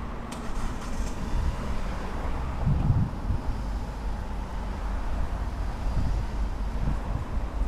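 Steady low rumbling noise, with a few soft low thumps about three seconds in.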